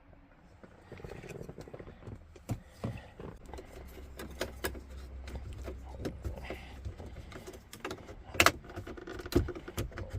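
Handling noise: scattered small clicks, taps and rattles of objects being moved about, with one sharp, loud click about eight and a half seconds in.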